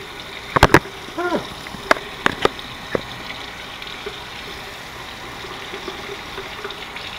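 Kitchen tap running steadily as white mushrooms are rinsed under it. Several sharp knocks and clatters sound over the running water in the first three seconds.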